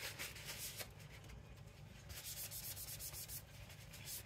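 Quiet, irregular scraping and rubbing strokes, with a busier run of quick strokes about halfway through.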